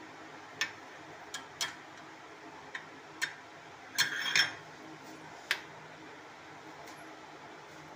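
Light metal clinks and knocks as steamed idlis are taken out of an aluminium idli mould plate and set onto a steel plate. There are scattered single knocks, with a quick cluster of clatter about four seconds in.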